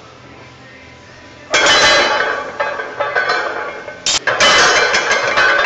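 Loaded barbell with Eleiko plates clanking and rattling as a heavy back squat is finished and the bar is walked into the rack. A sudden loud metal clatter comes about a second and a half in, and a second sharp clank about four seconds in.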